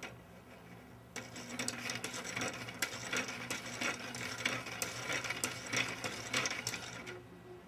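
3D-printed plastic barrel cam mechanism turned by hand: the cam followers ride the track wrapped around the drum and the slider shaft shuttles back and forth in its plastic guides, giving a busy, irregular clatter of plastic clicks and rattles. It starts about a second in and stops shortly before the end.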